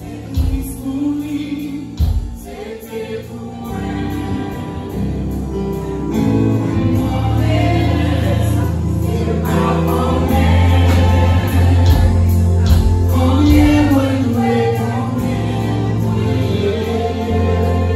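Amplified gospel choir singing live with a band. The sound is sparse with a few knocks for the first few seconds, then fills out with a heavy, steady bass line.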